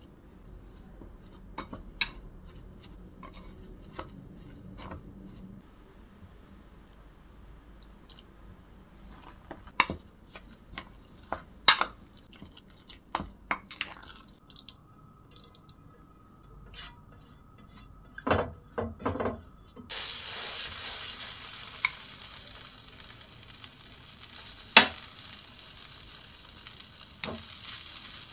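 A metal spoon stirring beetroot rava dosa batter in a glass bowl, clinking against the glass now and then. About two-thirds of the way in, a steady sizzle starts as the batter goes onto the hot tawa, with a few sharp spoon clinks over it.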